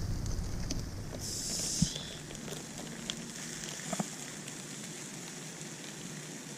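Campfire burning with a steady hiss, a few sharp pops and crackles, and a short higher hiss a little over a second in.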